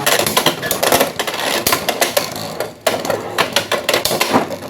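Beyblade X spinning tops battling in a plastic stadium: rapid, irregular clacks and rattles as they collide and skid around the bowl, with a brief lull about three seconds in.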